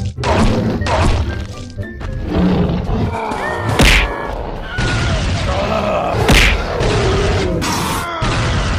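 Animated superhero cartoon soundtrack: action music mixed with fight sound effects, including two loud impact hits about four and six seconds in.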